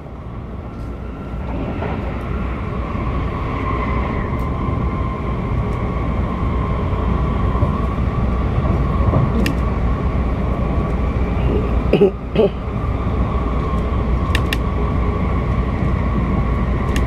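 Keisei Skyliner train running at speed, heard from inside the passenger car: a steady low rumble of wheels on rail with a constant high hum, growing louder over the first few seconds. A brief dip with two knocks comes about twelve seconds in.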